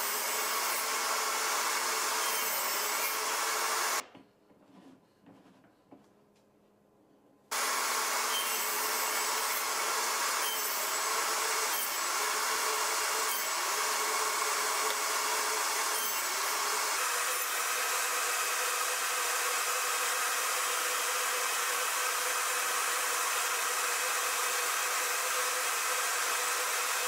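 Table saw running and ripping wood along the fence: a steady, loud motor-and-blade noise with a constant whine. It drops out suddenly about four seconds in and returns just as suddenly some three and a half seconds later.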